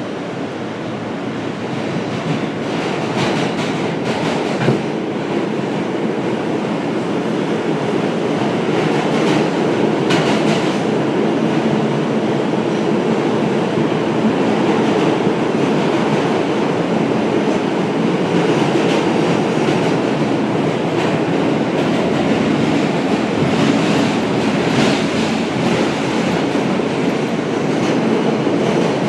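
New York City subway F train running between stations, heard from inside the car: a steady rumble and rail noise that grows louder over the first several seconds as the train picks up speed, with a few clicks of the wheels over rail joints.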